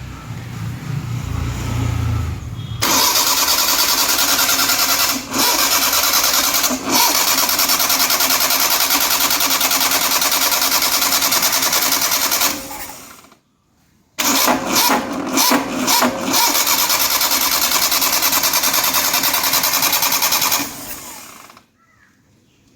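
Starter motor cranking the 1985 Maruti 800 SS80's three-cylinder engine in two long attempts, the first about ten seconds and the second about six, each cut off abruptly without the engine catching. The engine is being hard to restart after it was run a little earlier.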